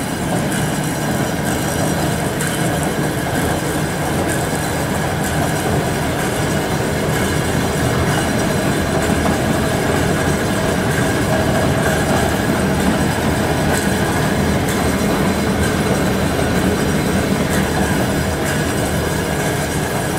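Grob TC4L vertical band saw with its 1 HP motor running steadily, the blade and drive making an even mechanical whir with faint scattered ticks; it runs fine.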